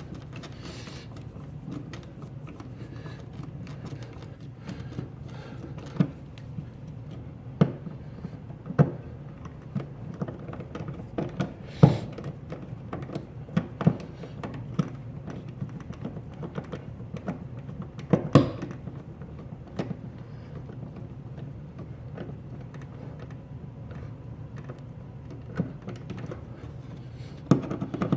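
Screwdriver driving the mounting screws of an electrical outlet into its wall box: scattered, irregular clicks and knocks of metal on metal and plastic, over a steady low hum.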